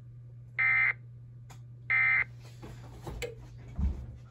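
Two short bursts of Emergency Alert System SAME data tones, a buzzy warble, about a second and a half apart: the end-of-message code that closes the alert. After them come faint rustling and a low thump, over a steady low hum.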